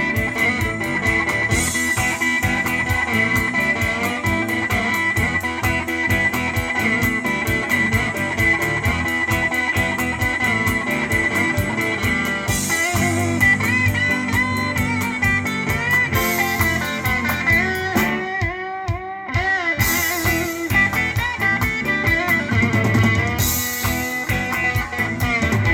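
Electric blues music led by electric guitar, played back through a hi-fi system's loudspeakers.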